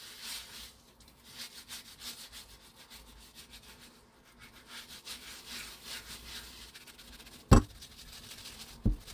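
A fruit-washing scrubber rubbing back and forth over the rind of a kabocha squash in quick, rasping strokes. Two sharp knocks near the end, about a second and a half apart, the first the loudest.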